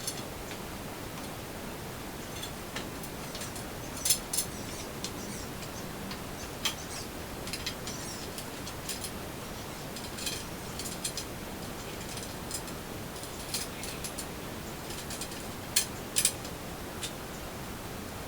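Irregular sharp clicks and light metallic taps of hand-tool work on nuts and bolts, a few louder ones in quick pairs, over a steady hiss.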